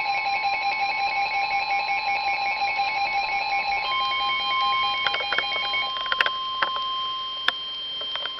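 Weather radio tornado warning alert: the steady warning alarm tone, with a fast pulsing, ringing alarm over it that stops about four seconds in. The steady tone then grows louder, and sharp clicks and crackles sound over it in the second half.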